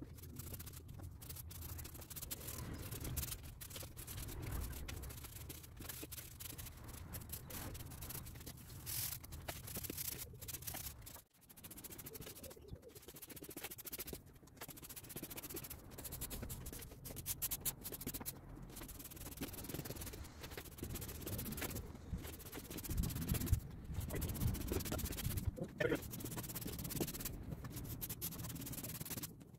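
Push broom sweeping sand across block paving, brushing it into the joints to re-sand them: repeated scratchy strokes of bristles and grit on the stone, with short pauses between strokes.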